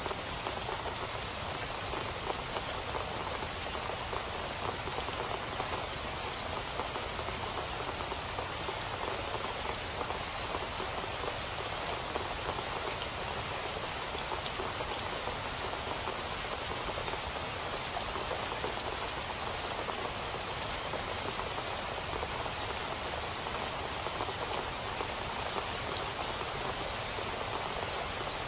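Steady rain falling on a wet asphalt street and lawns, an even, unchanging hiss of drops with no let-up.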